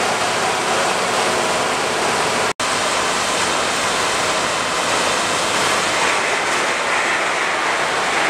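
Steady rushing hiss of water spraying from fire hoses, over fire engines running at the scene. The sound breaks off for an instant about two and a half seconds in.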